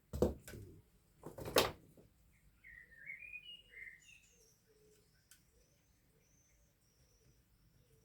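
Two brief clattering knocks in the first two seconds, the loudest sounds, then a bird singing: a few quick chirping phrases, followed by a faint high chirp repeated several times.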